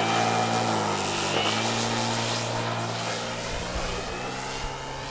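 Large electric-powered RC scale model of an Albatros D.Va biplane under power during its takeoff, a steady low drone with a faint higher whine that slowly fades.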